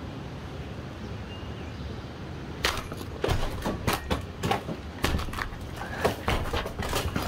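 Old wooden cellar flooring being broken up: a series of sharp, irregular cracks and knocks, several a second, starting about two and a half seconds in over a low steady rumble.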